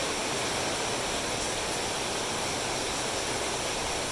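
Heavy rain falling, a steady, even rush of noise.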